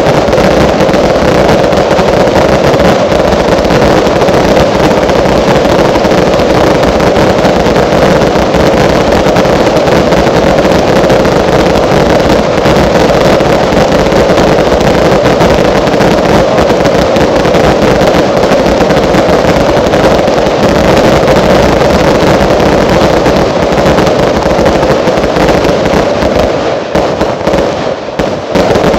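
Consumer (category 2) fireworks finale: a loud, dense and unbroken barrage of bangs and crackling, thinning out near the end.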